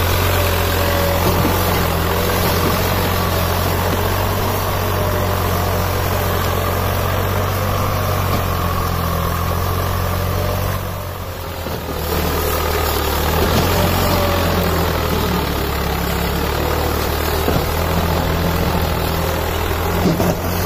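Swaraj 744 FE tractor's three-cylinder diesel engine running steadily, its loudness dipping briefly about halfway through.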